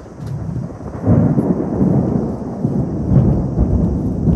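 Thunder rumbling: a low rumble builds, then about a second in swells sharply into a loud, long peal that keeps rumbling on.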